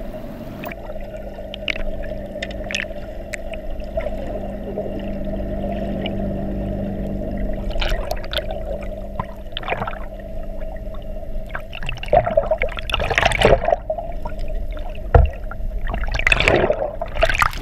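Sea water heard underwater through a submerged camera: gurgling and bubbling over a steady low hum. Louder rushes of bubbles and churning water come about twelve, thirteen and sixteen seconds in.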